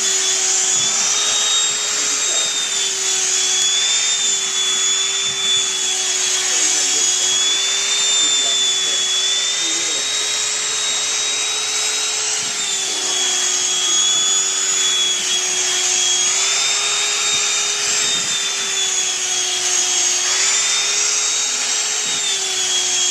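Black & Decker Dustbuster hand vacuum running steadily while being passed over a long-haired cat's fur: a continuous motor whine that dips slightly in pitch and recovers every few seconds.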